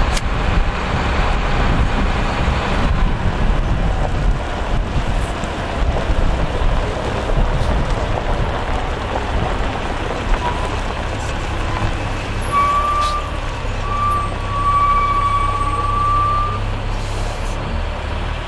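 Tour bus engine and road noise as the bus drives along, a steady low rumble. About two-thirds of the way in, a thin high squeal comes and goes for about four seconds.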